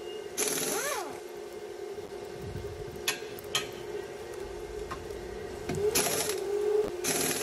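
Short bursts of a small electric motor, its pitch rising and falling as it spins up and down, three times over a steady hum, with a few sharp clicks in between.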